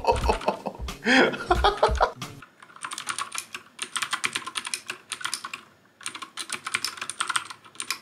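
Keychron K6 mechanical keyboard being typed on rapidly, its keys clacking in three fast bursts with short breaks, starting about two and a half seconds in. Background music plays before the typing starts.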